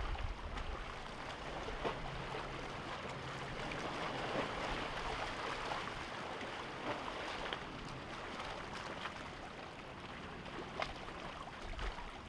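Distant, steady rushing roar of an Airbus A330-300 airliner's General Electric CF6-80E1 turbofans on final approach, swelling a little midway.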